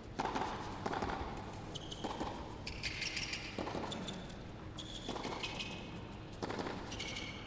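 Tennis serve and rally on an indoor hard court: racket strikes on the ball, each echoing briefly in the hall, with short high squeaks of shoes on the court.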